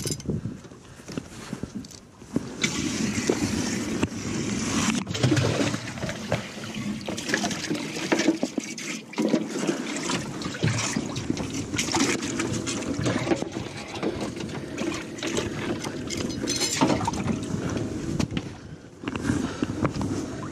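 Water sloshing and splashing in a bass boat's livewell as bass are handled in it, in irregular bursts.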